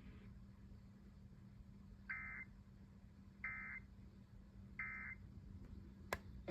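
NOAA Weather Radio SAME end-of-message data tones: three short, identical bursts of buzzy digital warble, about a second and a half apart, signalling the end of the warning broadcast. A faint steady hum runs underneath, and there is a sharp click near the end.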